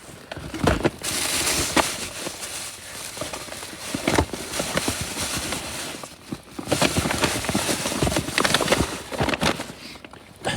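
Rustling and crinkling of bags and camping gear being handled and packed, with scattered knocks and clicks in two long stretches.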